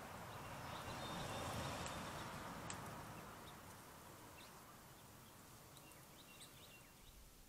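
Faint outdoor ambience: a soft rushing noise that swells over the first two seconds and slowly fades, with a few faint, scattered bird chirps and a single light click near the middle.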